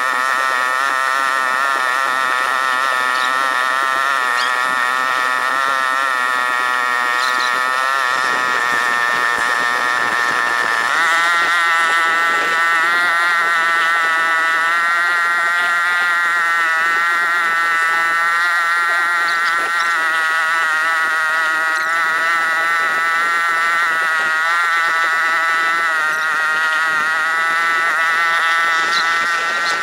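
Small boat engine running steadily with a buzzing drone while trolling; its pitch rises about ten seconds in, then holds.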